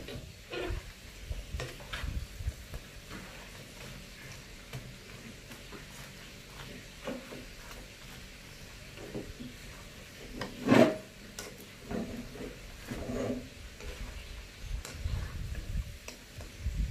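Mackerel skin frying in a pan with its spices, stirred with a spatula: a light sizzle under irregular scrapes and clinks. One brief, louder knock about eleven seconds in.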